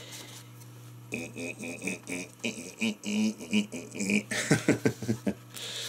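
A man's voice making a quick run of wordless, sung or mouthed syllables for about four seconds, starting about a second in, with a faster, breathier flurry near the end. A faint steady low hum runs underneath.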